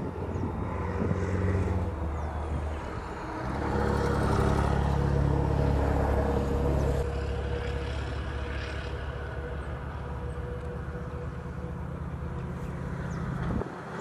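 A motor vehicle's engine running steadily, louder for a few seconds in the middle, then dropping away suddenly near the end.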